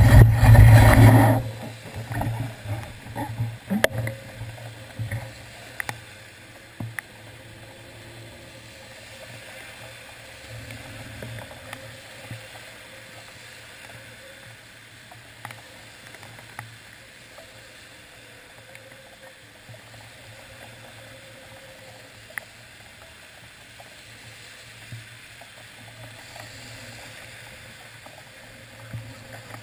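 City traffic passing on wet pavement: a steady low hum with a hiss of tyres on the wet road. A loud burst of noise opens the first second or so, followed by a few knocks and clicks.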